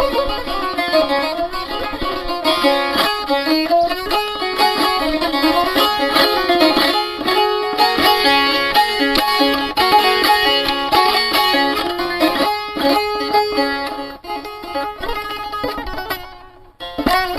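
Instrumental music led by a plucked string instrument playing a winding melody, with a brief break shortly before the end.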